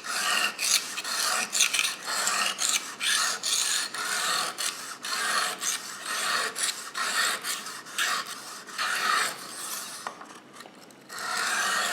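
Kitchen knife edge scraping across a coarse 220-grit aluminium oxide sharpening stone in quick repeated strokes, held at a 20° angle in a guide. The knife is being ground to raise a burr along the edge. The strokes pause briefly near the end, then start again.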